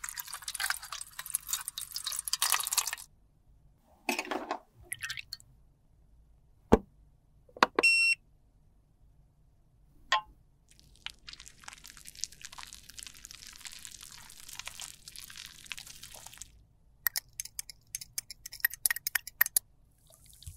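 Close-up handling sounds of cosmetics being worked by hand: a scrape at the start, a few taps and clicks, a brief ringing ping about eight seconds in, then a longer, softer scraping stretch and a run of quick clicks near the end.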